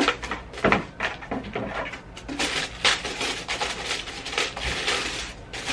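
Tissue paper rustling and crinkling as hands pull it open inside a cardboard shoe box, with a couple of sharper knocks of the box and lid in the first second.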